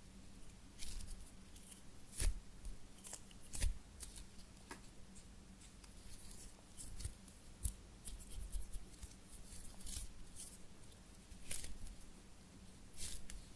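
Close-up handling of a squishy toy and its plastic: scattered crisp rustles and sharp clicks, with several louder snaps spread through the stretch.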